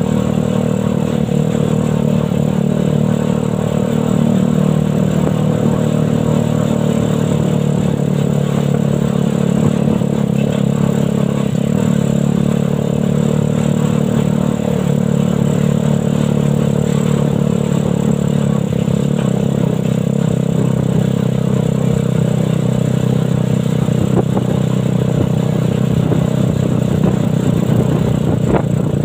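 Suzuki Satria FU 150cc single-cylinder four-stroke motorcycle engine in a homemade buggy, running steadily at a fairly even speed while driving.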